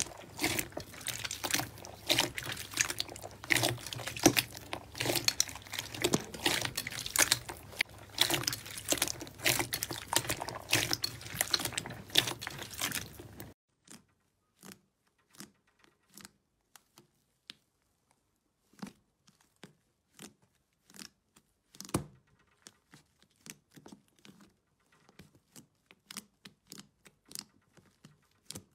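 Hands squeezing and kneading a glittery clear slime in a glass bowl, with dense wet squelching and crackling. About halfway through it gives way to sparse, soft squishes and pops from a thick blue slime being pressed and stretched, with silences between them.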